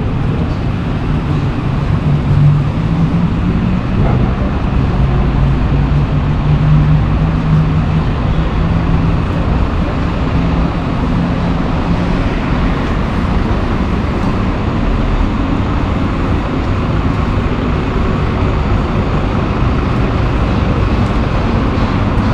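Paris Métro train running: a steady mechanical noise with a low hum that wavers in pitch during the first half, then settles.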